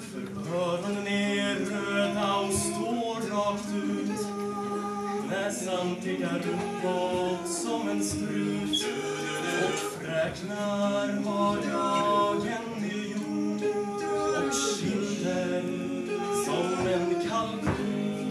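Male vocal quartet singing a cappella in harmony, with a steady lower note held under the moving upper voices.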